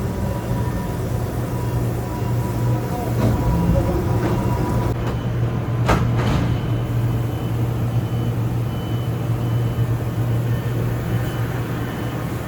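City bus engine running with a steady low drone, with a sharp click about six seconds in.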